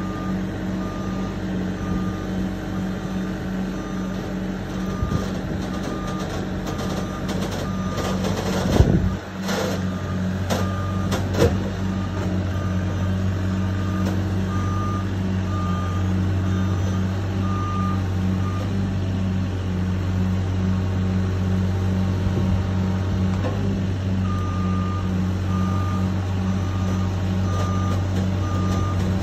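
Mini excavator's engine running steadily while its travel alarm beeps over and over as the machine tracks up onto a trailer; the beeping stops for a few seconds past the middle, then resumes. Two loud metal clanks, about nine and eleven seconds in.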